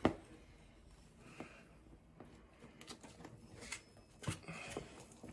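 Light handling sounds of a brass shower diverter valve body and its chrome parts being fitted together by hand: a sharper click right at the start, then a few scattered soft clicks and taps.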